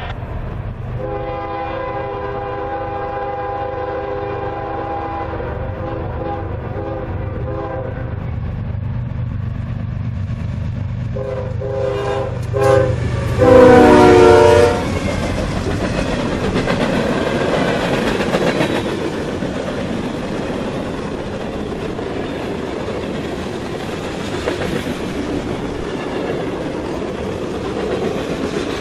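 Diesel freight locomotive sounding its multi-note horn as it approaches: a long blast, then shorter ones, the last and loudest falling in pitch as it passes close by. The locomotive's engine rumbles underneath, then the freight cars roll past with a steady rumble and clickety-clack of wheels on rail joints.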